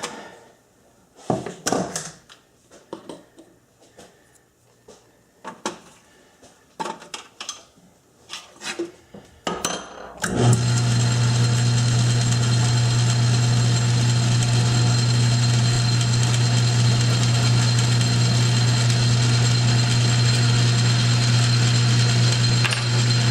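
Scattered clicks and knocks of tools and the part being handled at a small metal lathe. About ten seconds in, the lathe starts and its motor and spindle run steadily with a strong low hum, set up to step drill the part.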